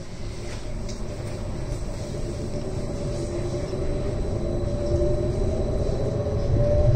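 Edinburgh tram heard from inside the passenger cabin, moving off from a stop: a low rumble under a faint electric traction-motor whine. The sound grows steadily louder as the tram picks up speed, and the whine rises a little near the end.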